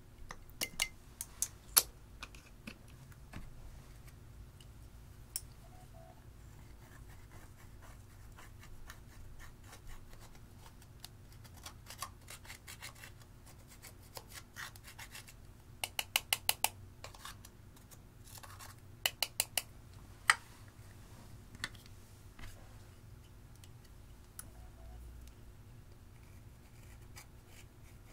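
A small metal tool scrapes and picks pressed eyeshadow out of plastic compacts, crumbling the powder. Light scratching is broken by scattered sharp clicks and taps, with two quick runs of four or five taps in the middle.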